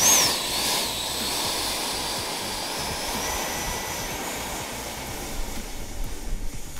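The 80 mm electric ducted fan of an RC jet spools up suddenly to high throttle and then runs steadily, a rushing sound with a high whine that rises slowly.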